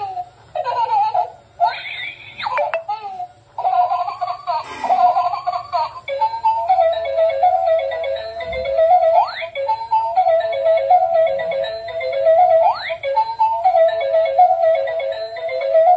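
Electronic crawling baby doll toy playing its built-in sounds: recorded baby giggling and babbling, then from about six seconds a looping electronic tune with a quick rising sweep every few seconds.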